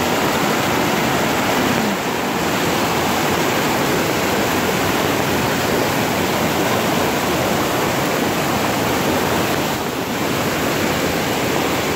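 Muddy river in flood rushing past: a steady, dense roar of fast-moving water.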